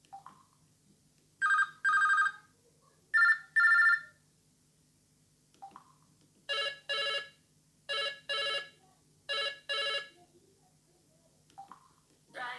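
LG KS360 mobile phone playing telephone-style ringtones through its speaker. A higher double ring sounds twice, then after a pause a lower double ring sounds three times, with faint clicks before each set.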